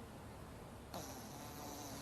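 Faint, soft breath of someone snoring, a quiet hiss starting about a second in.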